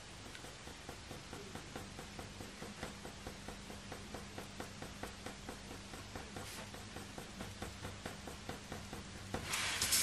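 Oil-based coloured pencil (Faber-Castell Polychromos) making short, light fur strokes on hot-press watercolour paper: a quick run of soft scratches, about three a second, over a faint low hum. Near the end there is a louder rustle.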